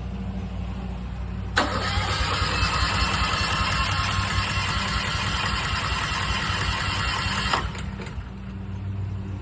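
Westinghouse 20,000-watt portable generator's electric starter cranking the engine. The cranking starts suddenly about a second and a half in, runs about six seconds and cuts off without the engine catching, as fuel has not yet reached the whole system. A steady low hum sits underneath.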